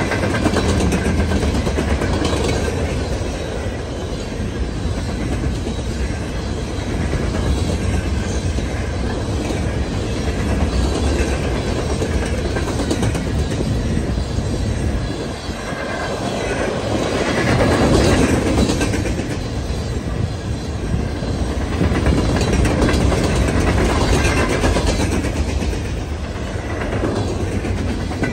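Freight train of open-top hopper cars rolling past close by: a continuous rumble of steel wheels on the rails, swelling and easing as the cars go by, loudest a little past the middle.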